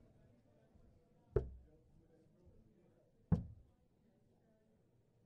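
Steel-tip darts striking a Winmau Blade 4 bristle dartboard: two sharp thuds about two seconds apart, and a third just at the end.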